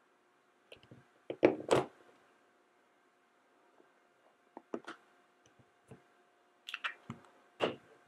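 Light clicks and knocks of hard plastic dress-up pieces for a Minnie Mouse toy figure being pulled off, set down on a shelf and snapped on. The loudest cluster comes about one and a half seconds in, with a few lighter taps later.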